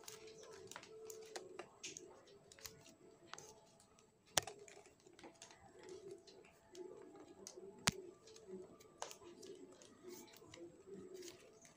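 Flat plastic craft wire strips rustling and clicking as they are handled, pulled through and tightened into knots, with two sharper clicks about four and eight seconds in.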